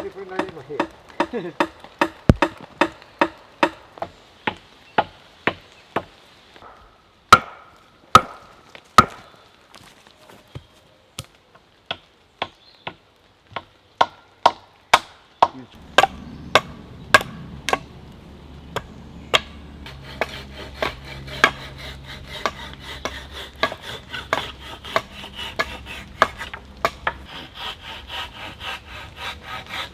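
Hammering into wood: a long run of sharp blows, about two to three a second, with a few louder strikes about a quarter of the way in. A steady low noise joins about halfway.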